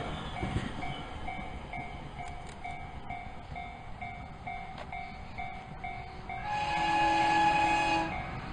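Electric trains passing, with a railway level-crossing bell ringing steadily at about three strokes a second. Near the end, an approaching electric train sounds a held, multi-tone horn for about a second and a half, louder than the bell.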